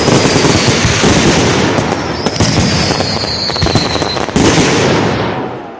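Fireworks display: a dense barrage of bangs and crackling, with a falling whistle from about two seconds in and a heavy bang past four seconds, then dying away near the end.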